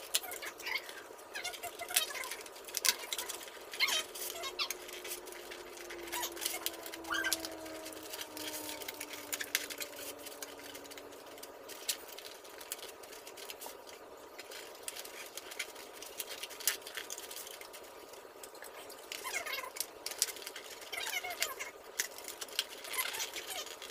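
Stiff cardboard 3D puzzle pieces being handled and slotted together: scattered small clicks and taps, with short squeaks and rubbing as the pieces are pushed into place.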